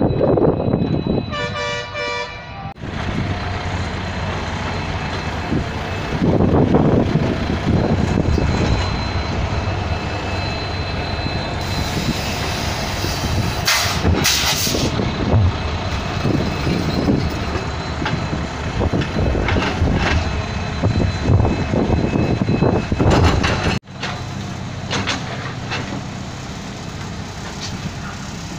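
Heavy diesel machinery running steadily. A horn sounds for about a second and a half near the start. About four-fifths of the way through the noise breaks off abruptly and continues a little quieter.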